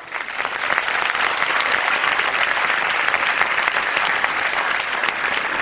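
Audience applauding, breaking out all at once as the recitation ends and holding steady.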